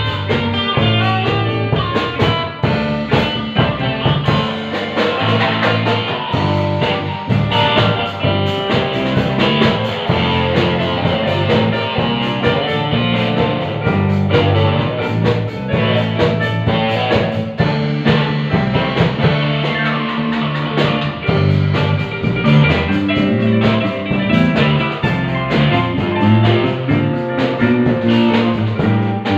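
Live band playing an instrumental passage: guitar to the fore over a moving bass line and drum kit.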